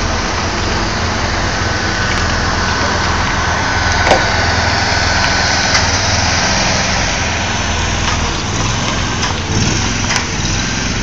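Multi-axle modular heavy-haul trailer carrying a 44.5-tonne steel bridge beam, moving slowly with its diesel engine running steadily under load, a low hum and a broad rushing noise. A faint high whine sounds through the first half, and a sharp click comes about four seconds in.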